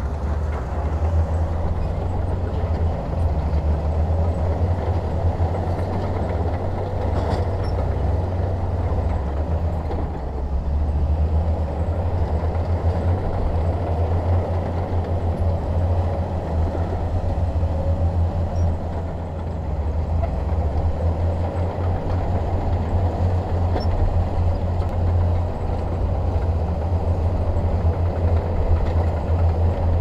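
Diesel engine of heavy earthmoving machinery running steadily under load, a deep, even drone with no pauses.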